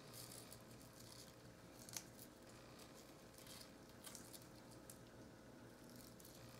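Near silence with faint crackles and squeaks of raw onion rings being pulled apart by hand, and one sharper tick about two seconds in.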